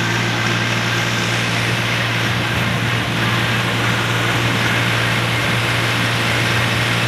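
Tractor engine running steadily while the tractor drives along, a constant low drone heard from the open driver's seat beside the upright exhaust stack.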